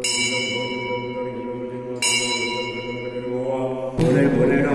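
A metal bell struck twice, about two seconds apart, each ring fading away over a steady droning devotional music bed. Near the end chanted mantra singing takes over.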